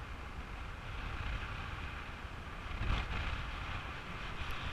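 Airflow buffeting the microphone of a camera on a paraglider in flight: a steady low rush of wind noise, swelling into a stronger gust about three seconds in.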